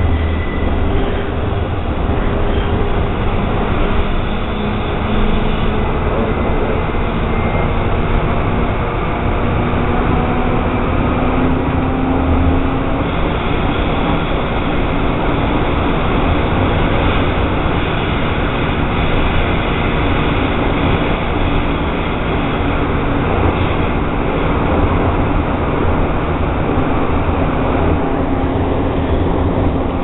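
Portland MAX light-rail train running along the track, heard from inside the operator's cab: a steady loud rumble of wheels and running gear. A humming tone in it rises in pitch about ten seconds in.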